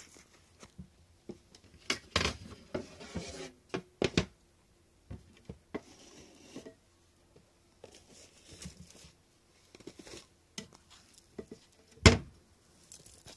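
Cats licking Churu lickable treat off a feeding spoon: scattered small wet clicks and smacks, with one louder knock about twelve seconds in.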